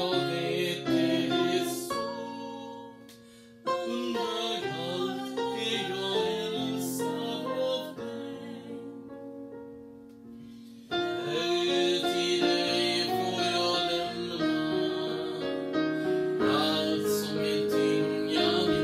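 A hymn sung to piano accompaniment, slow and gentle, dropping away twice between lines before starting again.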